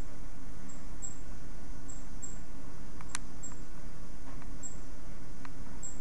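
Short high-pitched insect chirps, one every half second to a second, over a steady low hum, with a single sharp click a little past halfway.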